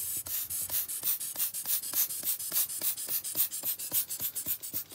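Quick scratchy strokes of a hand tool dabbing and rubbing wet alcohol ink on coated ceramic paper, several a second and irregular.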